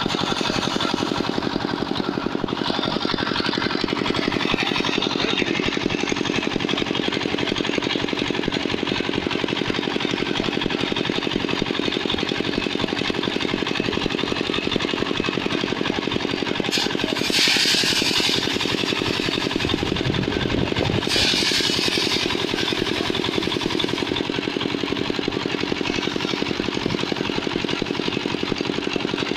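Engine-driven rice thresher running steadily, its spiked wire-loop drum beating the grain off bundles of rice stalks. The engine has a fast, even pulse, and two short hissing rushes come a little past the middle.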